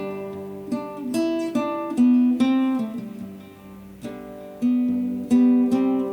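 Solo acoustic guitar playing a slow melody, plucked notes ringing and fading over sustained bass notes.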